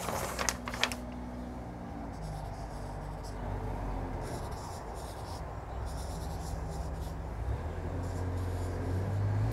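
Felt-tip marker pen drawing on flip-chart paper in a series of short scratchy strokes. A few sharp paper clicks and a rustle near the start as a flip-chart sheet is handled.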